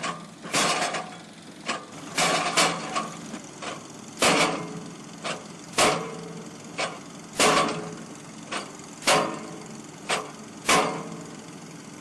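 Heavy knocks about every second and a half, each ringing briefly, over a running engine: an excavator driving vinyl sheet piling into the ground.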